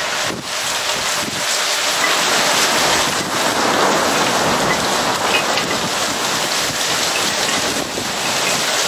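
Heavy rain pouring down steadily and loudly in a strong thunderstorm.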